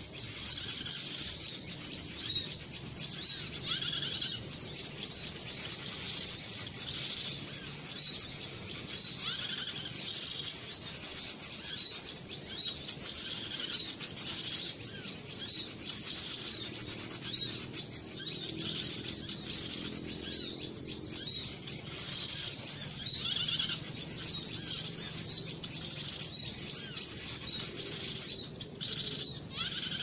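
A dense chorus of small birds: many high, short chirps and quick pitch sweeps overlapping without a break.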